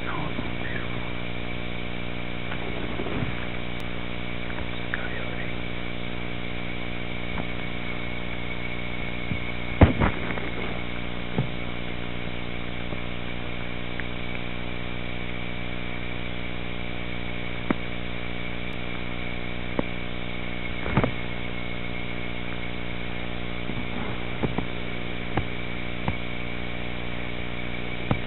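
Steady droning hum with a high-pitched whine over it, unchanging throughout, broken by a few scattered clicks and knocks, the loudest about ten seconds in.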